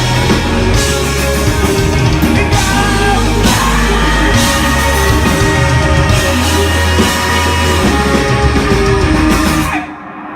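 Post-hardcore band playing live, loud, with heavy bass, drums and singing; the song ends abruptly near the end.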